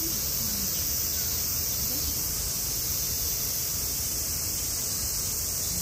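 A steady, high-pitched chorus of summer cicadas, with faint distant human voices underneath.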